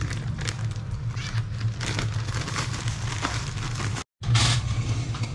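Plastic zip-top bag of fish-fry batter mix crinkling and rustling as it is handled, in irregular crackly bursts over a steady low hum. The sound breaks off for a moment about four seconds in.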